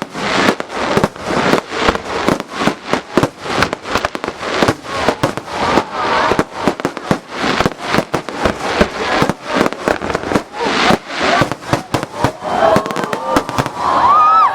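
Fireworks going off in a rapid barrage, several sharp bangs a second without a break.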